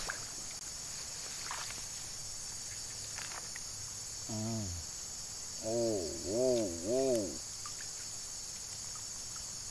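Steady high-pitched chorus of crickets and other insects. About halfway through come four short, low, voice-like hums, each rising and falling in pitch; these are the loudest sounds.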